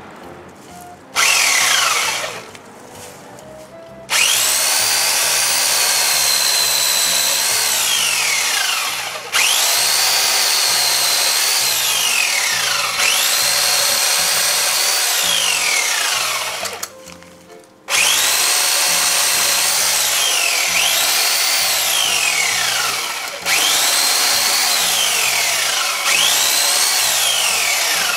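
Corded Toshiba electric chainsaw cutting into tree branches in repeated bursts: the motor whines up to speed as the trigger is pulled and winds down with a falling whine when it is let go, with a short pause about seventeen seconds in. Background music with a steady beat underneath.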